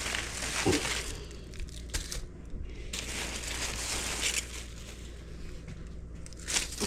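Crinkling and rustling of takeout food wrapping being handled and opened, in two long bouts with a short pause between.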